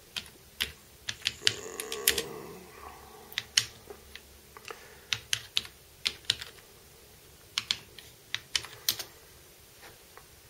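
Keys being typed on a full-size computer keyboard: short sharp clicks in irregular runs of two to four strokes with pauses between, as a command is entered.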